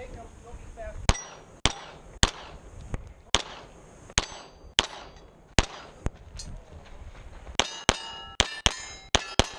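A string of semi-automatic pistol shots, about fifteen, roughly half a second apart at first and quicker near the end. Steel plate targets ring clearly after several hits, above all in the last couple of seconds.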